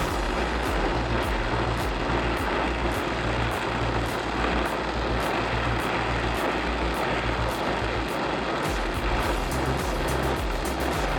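Oxy-acetylene welding torch flame hissing steadily while fusing steel without filler.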